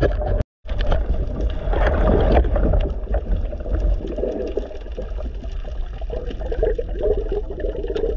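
Muffled underwater sound of moving water and gurgling against a submerged camera, continuous and heavy in the lows, broken by a brief cut-out about half a second in.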